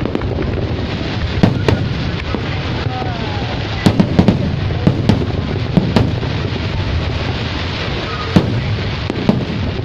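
Aerial fireworks shells bursting: about ten sharp bangs at uneven intervals, several in a quick cluster around four to five seconds in, over a steady din.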